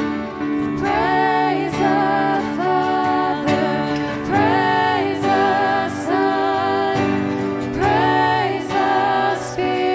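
Worship song: a singer holding long notes with vibrato over sustained band or keyboard chords.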